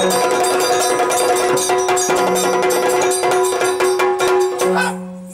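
Yakshagana background ensemble: chende and maddale drums beating fast, dense strokes over a steady held drone. The playing eases off and grows quieter in the last second.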